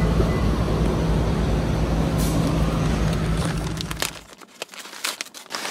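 Steady low rumble of a motor vehicle's engine and road noise, cutting off suddenly about four seconds in. A few light clicks and rustles follow near the end.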